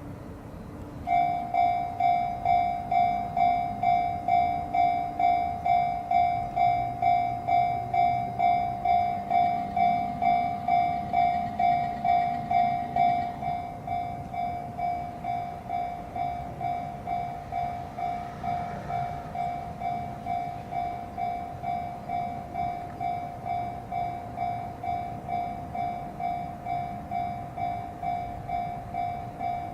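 Japanese level-crossing alarm starting up: an electronic bell ringing about two strokes a second, warning that a train is approaching. About 13 seconds in it drops to a lower volume and keeps ringing.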